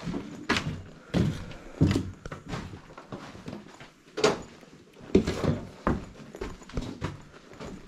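Footsteps walking over fallen ceiling tiles and plaster rubble, an uneven series of crunching, scraping steps.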